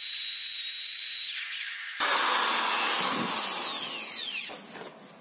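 iBell IBL SD12-75 corded electric drill-driver running with a steady high motor whine while its bit drills into a brick. About two seconds in, a cut leads to another run of the drill, whose whine falls in pitch as the motor slows and stops.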